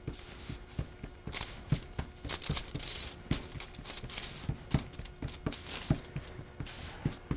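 Hands pressing and patting pie-crust dough flat on parchment paper: irregular soft taps and pats, with the paper rustling now and then.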